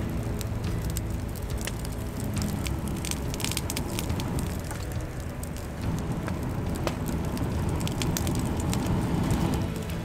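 Wood fire crackling and popping, under a low rushing sound that swells in the second half as air is blown into the fire through a fire-blowing pipe to build up the flames.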